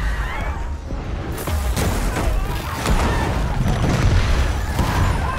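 Film sound effects of a city being destroyed: deep rumbling booms and crashes of explosions and collapsing stone, under dramatic music.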